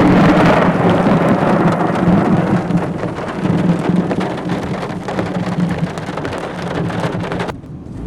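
Loud, rolling thunder from a very close lightning strike, swelling at once and slowly ebbing over steady heavy rain. About seven and a half seconds in, the hiss of the rain drops away abruptly.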